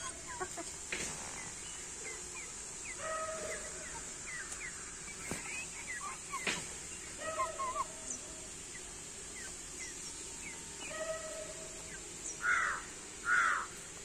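Chickens clucking and calling in short, repeated notes, with two louder calls close together near the end.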